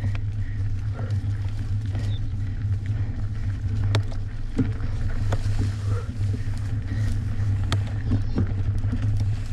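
Merida One-Sixty mountain bike riding down rough trail: a steady low wind rumble on the microphone, with sharp knocks and rattles from the bike now and then.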